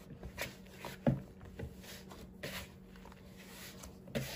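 Hand kneading glutinous rice flour dough in a plastic bowl: irregular soft squishes and pats, with one sharper knock about a second in.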